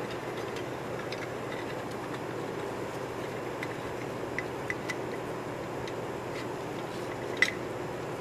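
A few faint clicks and one sharper tick about seven seconds in as a glass jar is tilted and a pallasite meteorite slice slides and knocks against the glass, over a steady low machine hum.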